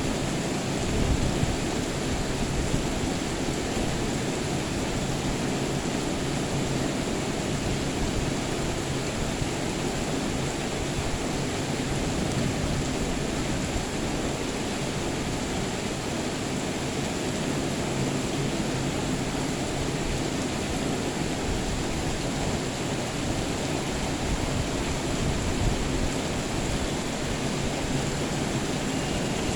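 Steady rain falling, an even, unbroken hiss without thunder.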